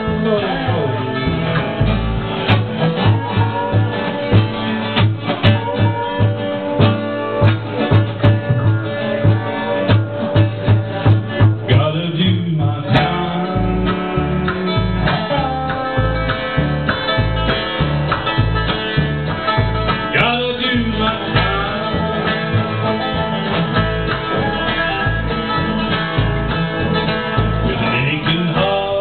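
Live bluegrass band playing acoustic guitar, mandolin and upright bass, with a man singing over the steady plucked bass beat.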